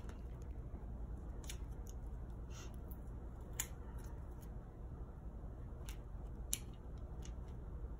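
Faint, scattered small clicks and ticks of adhesive craft jewels being peeled from their sheet and pressed onto a craft mirror, over a steady low room hum.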